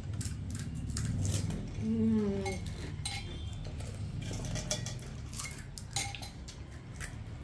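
Metal spoons clicking and scraping against serving bowls and plates as puri shells are cracked open and filled, a string of short sharp clinks, with a brief murmur of a voice about two seconds in.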